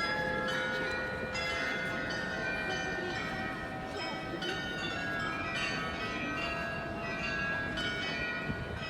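Glockenspiel bells of Munich's New Town Hall tower playing a tune: a quick run of struck bell notes, each ringing on under the next, over the murmur of a crowd.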